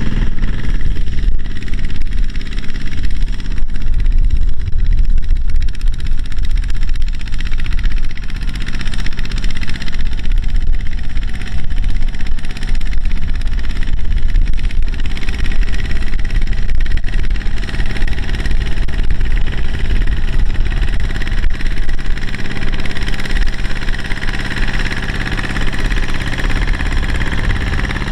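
Single-cylinder diesel engine of a two-wheel walking tractor running steadily under load as it pulls a loaded trailer.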